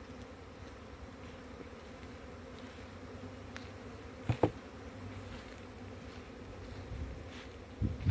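Honey bees buzzing steadily around opened hives, a low even hum, with a brief thump about four seconds in.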